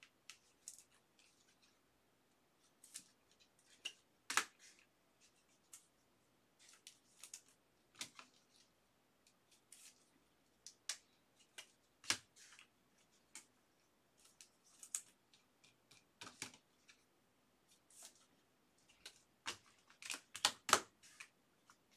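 Baseball cards and clear plastic penny sleeves being handled: irregular faint crinkles and flicks as cards are slid into the sleeves and set down, with a few sharper clicks, the sharpest about four seconds in and a cluster near the end.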